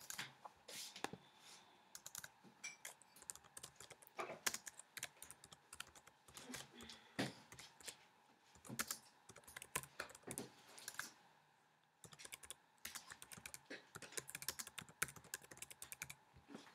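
Faint typing on a computer keyboard: quick, irregular keystroke clicks with a short pause about two-thirds of the way through.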